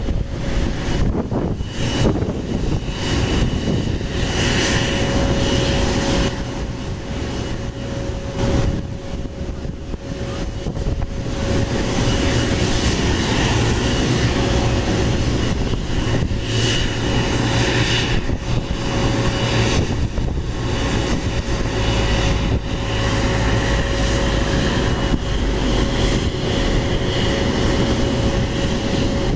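Airbus A330's jet engines idling after pushback: a steady whine over a low rumble, with gusts of wind buffeting the microphone during the first half.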